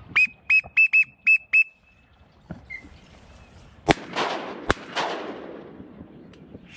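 A waterfowl whistle call blown in six short, even peeps at one steady pitch. A few seconds later come two shotgun shots under a second apart, each trailed by a fading echo.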